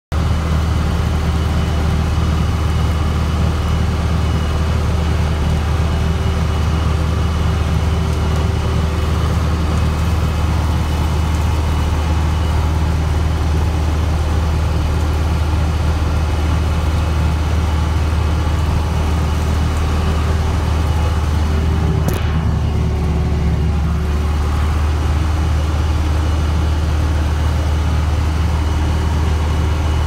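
Case 580 backhoe's diesel engine running steadily under load while plowing deep snow, heard from inside the cab as a constant low drone. One brief knock about two-thirds of the way through.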